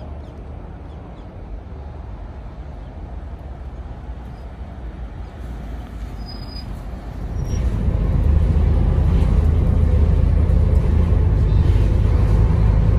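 Steady deep rumble of a vehicle in motion, growing clearly louder about seven and a half seconds in.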